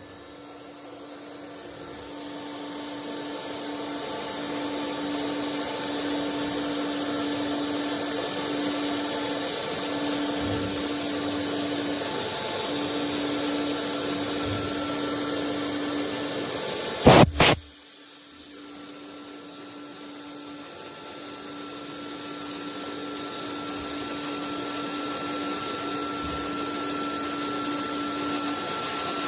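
CNC router with an automatic tool changer running a drilling job: a steady rushing whir with a high whine over it. About two-thirds of the way through come two short, loud sharp blasts, after which the machine goes quieter and builds back up over several seconds.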